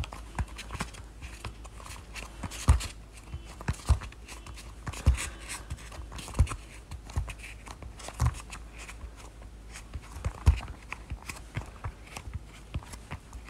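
Hands pressing and folding air-dry foam clay in around the base of a styrofoam gumdrop form: soft rubbing and scraping, with light knocks every second or two as the form is handled against the cutting mat.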